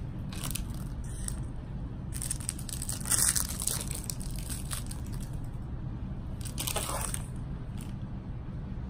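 Hands placing peppermint candies into icing on a gingerbread house roof: a few short crinkling, crunching handling noises, the longest about two seconds in and another near seven seconds, over a steady low rumble.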